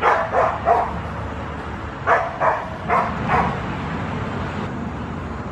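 A dog barking in two short runs, three barks and then four, about three a second, over a steady low rumble.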